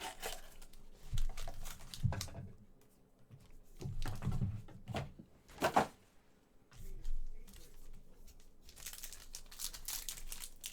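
Trading-card pack wrappers being torn open and crinkled, a string of short tearing and rustling noises with brief pauses between them.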